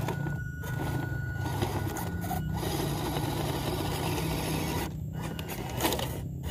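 Small RC rock crawler's brushed 180-size motor and stock plastic gearbox running, with a grinding, scraping noise as it crawls. The sound cuts out briefly about four times.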